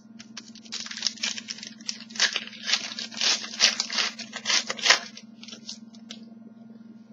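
Foil trading-card pack wrapper being torn open and crinkled, a quick run of sharp crackling tears lasting a few seconds, then quieter rustling, over a steady low hum.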